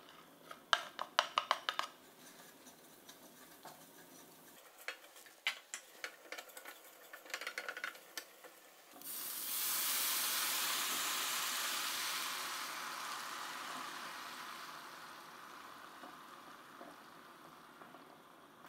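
A spatula stirs and scrapes toasted rice and wild asparagus in a nonstick pan, in two spells of quick clicks. About nine seconds in, broth hits the hot pan, setting off a sudden hissing sizzle that slowly dies down as the liquid covers the rice.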